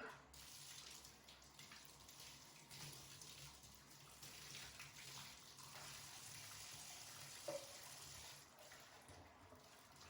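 Faint running and splashing water in a bathtub during a dog's bath, as shampoo is being rinsed off.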